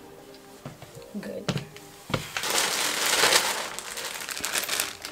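Clear plastic poly bag crinkling as a packaged garment is handled, starting about two and a half seconds in and carrying on steadily.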